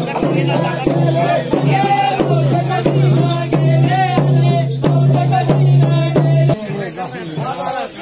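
Festival procession music: a dhol drum beaten about twice a second with jingling bells, over a wavering melody and a steady low drone that cuts off about six and a half seconds in.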